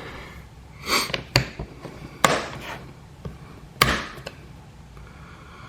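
A handful of short sharp clicks and knocks, four or five between about one and four seconds in: plastic push-pin rivets being snapped and pressed home, their center pins locking them in the drilled holes.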